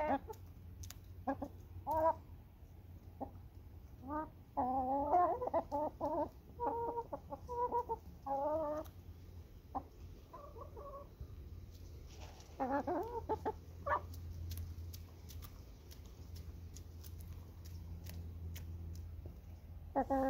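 Domestic hens clucking in short, repeated calls while being hand-fed mealworms, busiest in the first half and again about two-thirds of the way through, with scattered small clicks.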